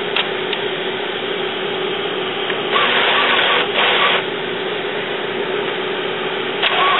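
Epson WorkForce 840 inkjet printer's mechanism running its power-up head-cleaning cycle: a steady mechanical hum with a held tone. Two louder whirring stretches come about three to four seconds in, and there are a few clicks.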